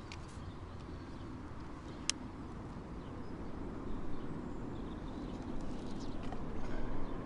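Steady outdoor background noise with a single sharp click about two seconds in.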